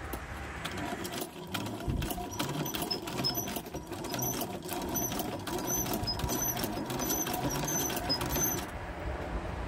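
Sewing machine stitching a zipper onto tent screen mesh, the needle clattering at a fast, steady rhythm, stopping shortly before the end.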